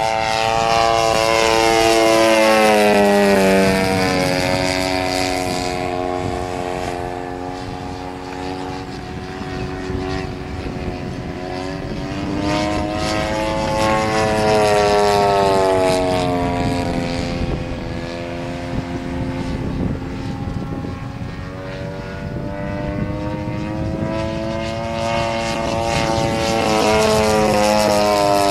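Engine and propeller of a quarter-scale radio-controlled P-51 Mustang model droning in flight. The pitch falls as it passes about three seconds in and again around fourteen seconds, then climbs as it comes back near the end.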